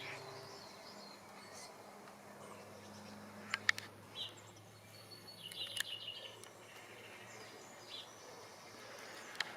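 Faint outdoor birdsong: a few scattered short chirps and calls over a low steady background hum.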